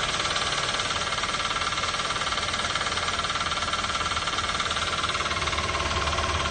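Toyota 3SZ-VE 1.5-litre four-cylinder engine running with a steady, rapid knock. A mechanic ran it with the serpentine belt off and the knock stayed, so it comes from inside the engine.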